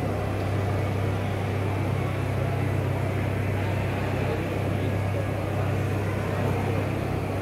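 A steady low mechanical hum of a machine running, over an even wash of background noise.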